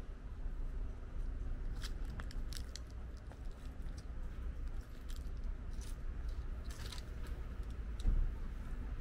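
Faint, scattered crunches and clicks of footsteps over a low steady rumble, with one thump about eight seconds in.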